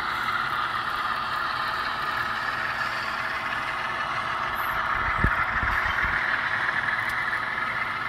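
Diesel locomotive sound from the ESU sound decoder in an HO-scale GE ES44AC model, played through its small speaker as the locomotive runs with its train. A brief low thump comes about five seconds in.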